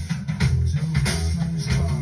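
Rock band recording with drum kit, bass and electric guitar playing steadily. It comes from a phone through a Bluetooth cassette adapter and the van's original cassette stereo speakers.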